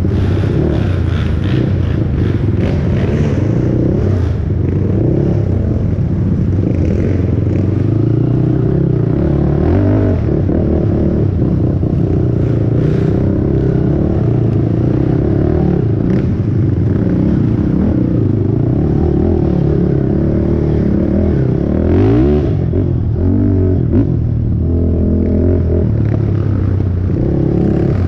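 A 450cc single-cylinder four-stroke race quad's engine, heard from the rider's seat as it is ridden hard over a dirt trail, its revs rising and falling as the throttle is worked. Quick rev sweeps come a little past twenty seconds, and there are a few sharp knocks from rough ground.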